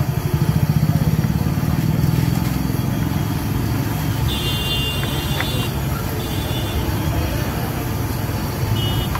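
Vadas deep-frying in a large kadhai of hot oil, under a steady low rumble of motor traffic. A few short high-pitched tones sound about halfway through and again near the end.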